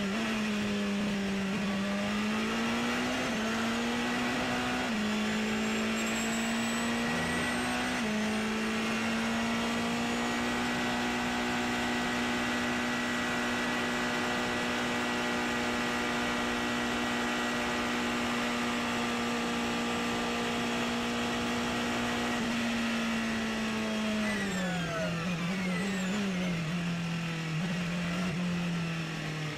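Porsche 919 Hybrid's turbocharged V4 engine at racing speed, heard onboard. Its note wavers in the first few seconds, holds a long steady pitch for about fifteen seconds, then falls in steps near the end.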